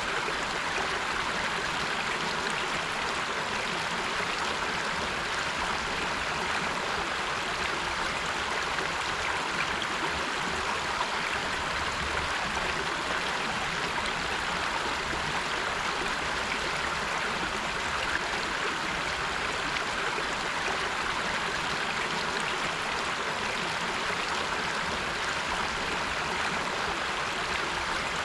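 River water flowing and rushing steadily, a continuous even hiss with no breaks.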